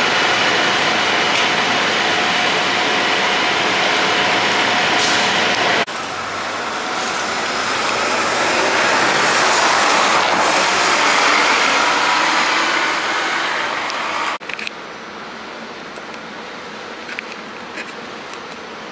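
Diesel transit buses running: first a steady engine noise with a faint whine, then a bus and car passing close, the sound swelling and fading over several seconds. After a sudden change near the end comes a quieter, steady hum of an idling bus and traffic.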